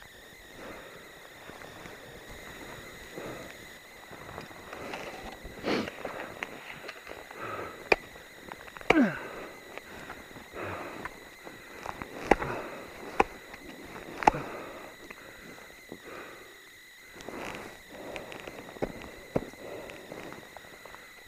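Ice axes planted into deep snow and crampons kicking steps while climbing: crunching and shuffling with several sharp knocks, the loudest clustered in the middle.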